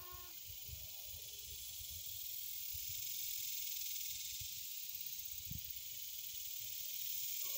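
A steady high hiss, with soft, irregular low thumps underneath.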